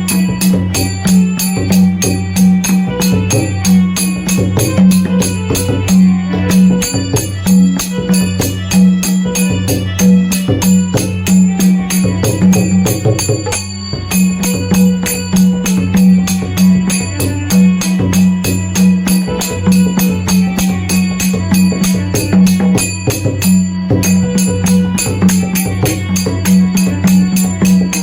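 Konkani folk percussion played for the Shimga festival: drums beating a fast, driving rhythm with rapid jingling strokes, continuous and loud.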